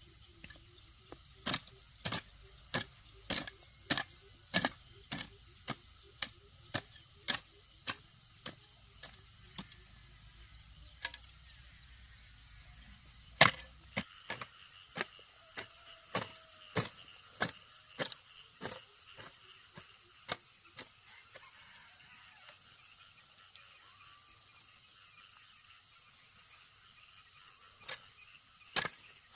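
Runs of sharp tool strikes on wood, a little under two a second, pausing twice along the way, over a steady high drone of crickets.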